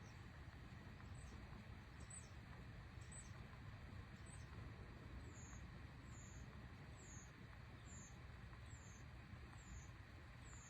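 Near silence: a faint low hum with a faint, short, high-pitched falling chirp repeated about once a second.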